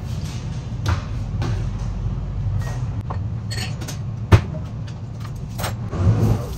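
Kitchen tidying clatter: scattered knocks and clinks of things being handled and put down, the sharpest about four seconds in, over a steady low hum.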